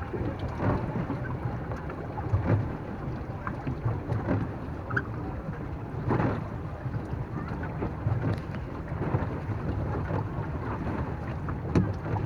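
Wind on the microphone over the steady low rumble of a small boat moving on the water, with scattered splashes and slaps of water against the hull, one stronger about six seconds in.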